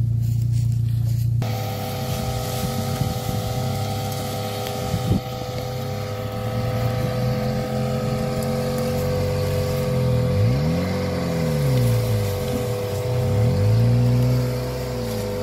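Opel Frontera 4x4 engine running on an off-road track, revving up and falling back twice in the second half. A steady droning music bed comes in about a second in and holds underneath.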